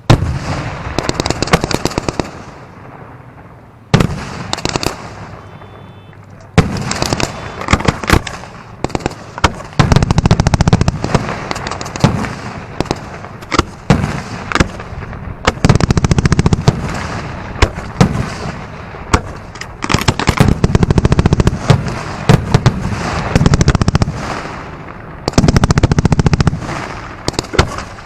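A fireworks barrage: dense runs of sharp cracks and bangs, some in rapid strings, with heavier booms every few seconds.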